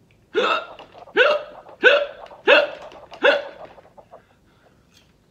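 A man's short, sharp vocal spasms, five in quick succession about two-thirds of a second apart, each jumping up in pitch: a body reaction to the burn of Carolina Reaper pepper popcorn.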